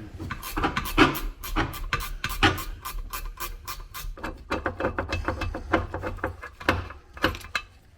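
Ratchet wrench clicking in rapid runs of strokes, several clicks a second with brief pauses, as fasteners on the personal watercraft's exhaust are worked loose.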